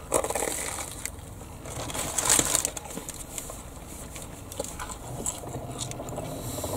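Biting into and chewing a battered, deep-fried pizza: the crispy batter crunches, loudest a little over two seconds in, then softer chewing follows.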